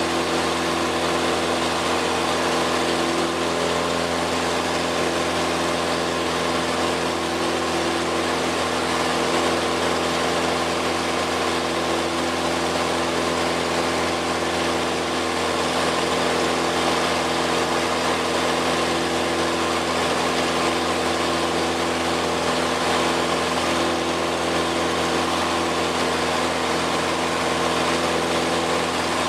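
Cessna light aircraft's engine and propeller heard inside the cabin, a steady drone at constant power with no change in pitch.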